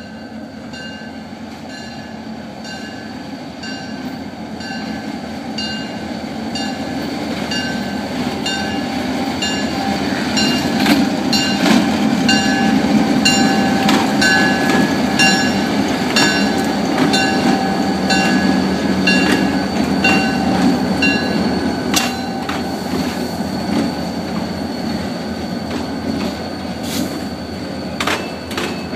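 Diesel locomotives hauling a freight train slowly past. The engine rumble grows louder until about halfway through as the locomotives come close. A locomotive bell rings steadily about twice a second, with a thin wheel squeal in the middle stretch and sharp clanks of wheels over rail joints.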